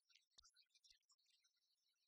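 Near silence, with faint handling of a sheet of cardstock on a scoring board and one soft tap about half a second in.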